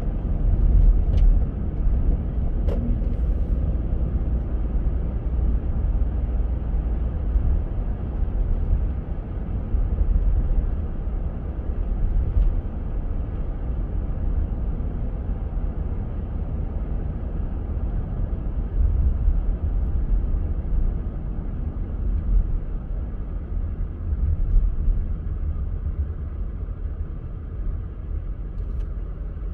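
Car driving on a snowy road: a steady low rumble of engine and tyres, with a couple of faint clicks in the first few seconds.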